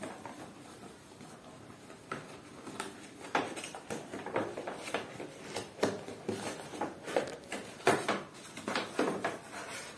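Cardboard toy box being handled and picked open by hand: a run of light knocks, taps and scrapes on the cardboard, starting about two seconds in and going on irregularly.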